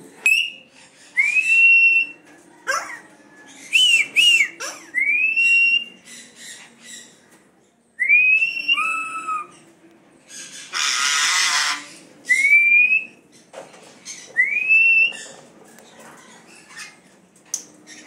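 Male parrot whistling: a string of short, upward-sliding whistles repeated every second or two. A harsh rasping burst lasting about a second comes just after the middle.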